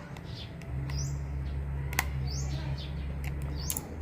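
A bird calling repeatedly, a short high rising chirp about every second and a half, over a low steady hum that sets in just under a second in and fades near the end.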